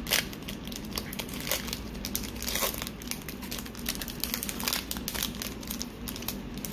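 Foil wrapper of a Pokémon Hidden Fates booster pack crinkling as it is torn open and handled, a dense run of small crackles with a louder one right at the start.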